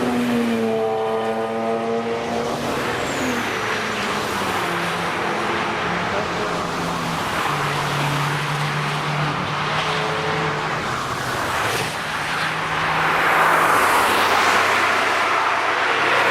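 Cars passing at speed one after another, their engines running at high revs, the pitch of each shifting as it goes by. Near the end a louder rush of tyre and wind noise swells as a car passes close.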